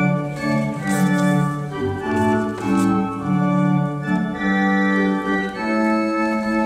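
Organ music: a run of sustained chords held and changed about twice a second.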